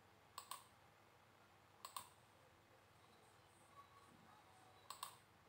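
Computer mouse button clicking three times, each click a quick pair of ticks from press and release, over near silence.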